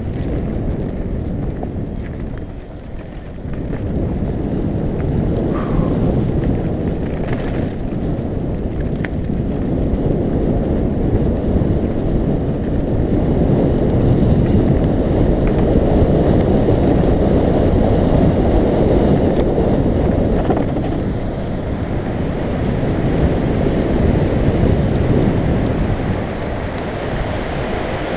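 Wind buffeting the microphone and the rumble of a mountain bike's tyres on a dirt singletrack at speed. The noise stays loud and dense, with a few faint clicks and rattles from the bike.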